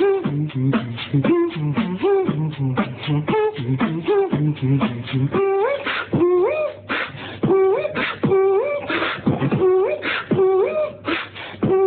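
Beatboxing: one person making drum and bass sounds with the mouth in a steady rhythm, with pitched vocal notes sliding over the beat. About halfway through the low bass notes drop out, and short rising vocal notes with sharp snare-like hits carry the pattern.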